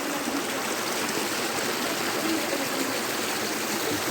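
Steady rush of flowing water from a stream or waterfall, an even hiss with no breaks.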